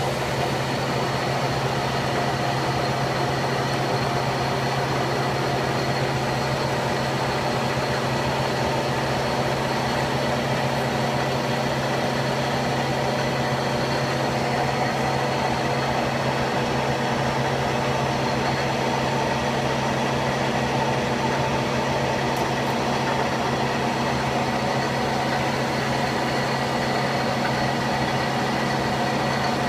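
Köpfer 143 CNC gear hobbing machine running: a steady, unchanging machine hum with a few constant higher whines over it.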